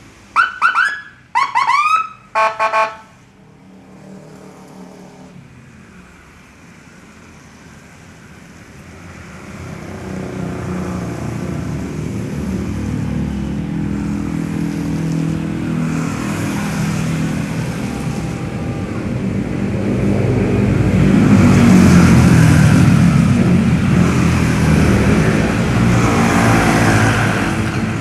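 A police siren gives several short whoops and rising yelps during the first three seconds. Then vehicle engine and road noise builds to a loud pass about twenty seconds in and eases off.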